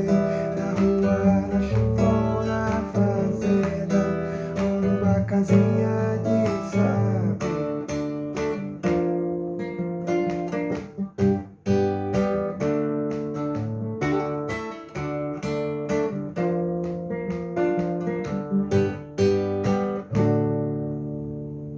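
Acoustic guitar strumming chords in a steady rhythm, ending on a final chord that is left to ring and fade near the end.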